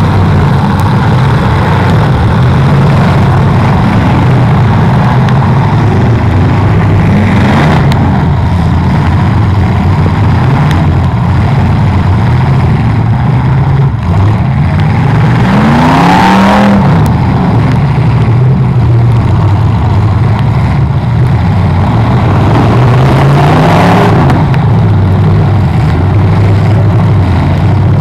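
Several demolition-derby cars' engines running hard together, with a steady low drone and an engine revving up sharply three times, near the start, midway and near the end.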